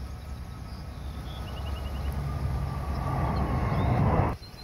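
Jet engine noise from Blue Angels F/A-18 Hornets flying past in formation, a low rumble that grows steadily louder and then cuts off suddenly near the end.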